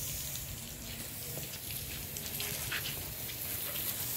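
Water from a garden hose splashing and pattering onto glass solar panels, a steady hiss of falling water.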